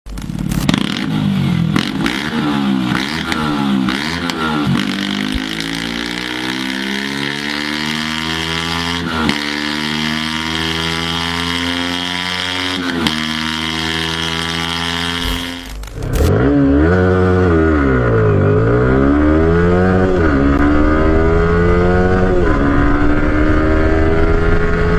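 Yamaha YZF-R series sport motorcycle exhaust: a few quick throttle blips, then the engine accelerating with rising pitch and two sudden drops as it shifts up, about 9 and 13 seconds in. A second clip follows, starting with rev blips and then pulling up through the revs.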